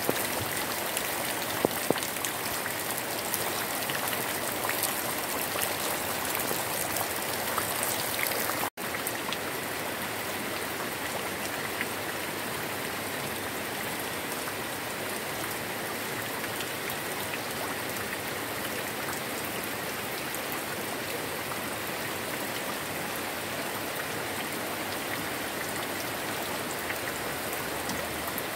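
Steady rain falling on garden plants, mixed with muddy rainwater runoff running in a small stream across the ground. There is a brief drop-out about nine seconds in.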